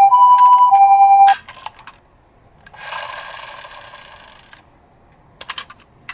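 Toy ambulance's electronic two-tone siren alternating between a high and a low note, which cuts off suddenly about a second in. Then come a few clicks and a couple of seconds of soft rattling noise, followed by more clicks near the end.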